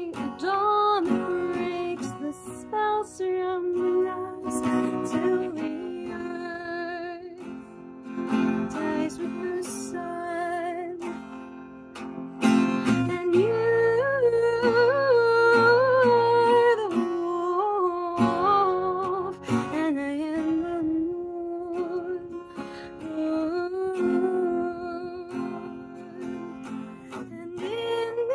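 A woman singing to her own capoed acoustic guitar, holding long notes that waver in pitch. Voice and guitar grow louder about halfway through.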